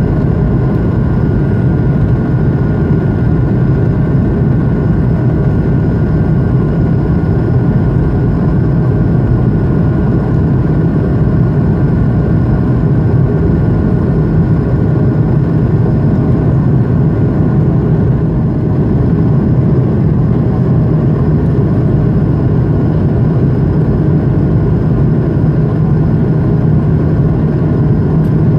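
Steady cabin noise of an Airbus A220-100 climbing after takeoff: the deep rumble of its Pratt & Whitney PW1500G geared turbofans and airflow, heard inside the cabin from a window seat, with a few faint steady tones above the rumble.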